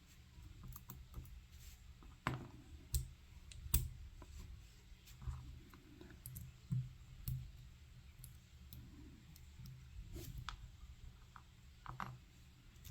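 Scattered small metal clicks and taps as the pins are taken out of an Assa 700 pin tumbler lock while it is gutted, the loudest about four seconds in.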